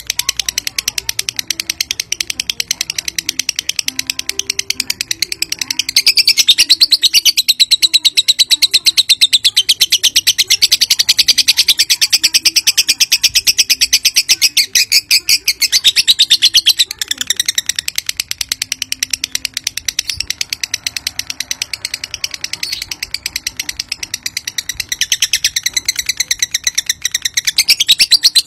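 Lutino lovebird chattering in a long, unbroken, very rapid shrill trill (the 'ngekek panjang'). It grows louder about six seconds in, eases off after about seventeen seconds, and swells again near the end.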